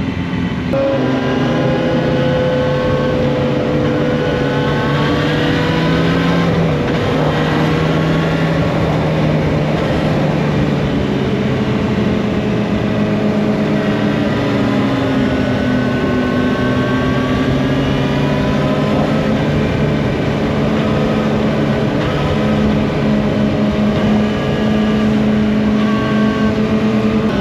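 Motorcycle engine running while being ridden, its pitch drifting slowly up and down with throttle and speed.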